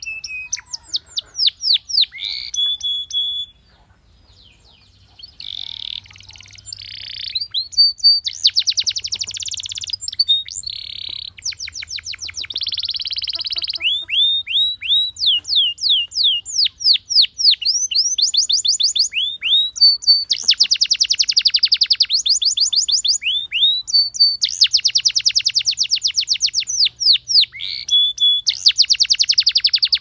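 Domestic canary singing: a long song of fast trills and rapid runs of repeated, downward-sweeping high notes, with a brief pause about four seconds in.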